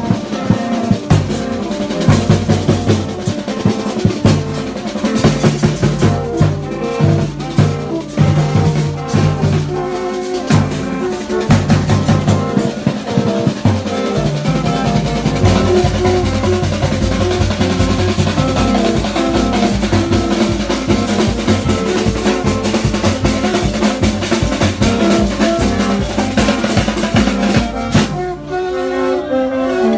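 A street percussion band playing: a hand drum and snare drums beat a fast, driving rhythm while long plastic horns sound short repeated notes over it. About two seconds before the end the drumming stops and other music carries on.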